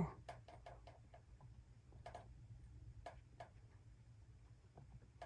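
Near silence with faint, irregular clicks and light taps over a low steady hum.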